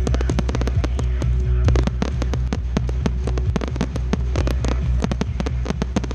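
Fireworks display: a rapid, unbroken string of bangs and crackles from comets, mines and small shells firing close together, over a steady low hum.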